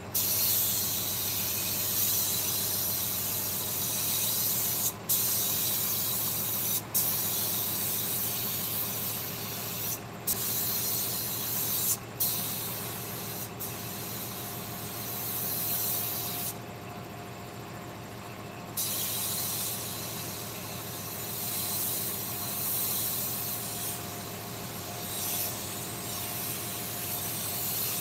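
A workshop tool hissing steadily, with several brief sharp cut-offs and one longer pause, over a steady low machine hum.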